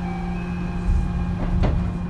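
JR West 223 series electric train standing at the platform, a steady electrical hum with several fixed tones, and a few short knocks in the second half.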